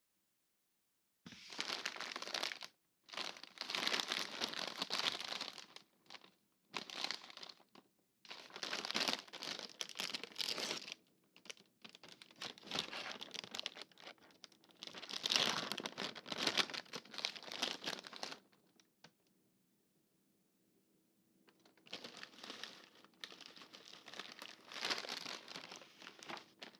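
Snack packaging crinkling as it is handled, in repeated crackly bursts, with a pause of a few seconds about three-quarters of the way through.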